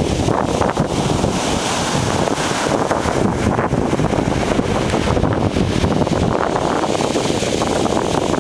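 Ocean surf washing ashore, a steady rushing hiss that swells about two seconds in and again near the end, with wind buffeting the microphone underneath as a low rumble.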